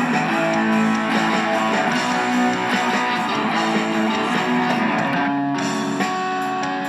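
Band music led by guitar, with plucked and strummed guitar parts over a steady backing.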